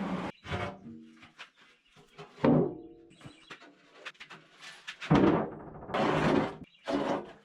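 Music with a few heavy percussive hits and short bursts, separated by quiet gaps.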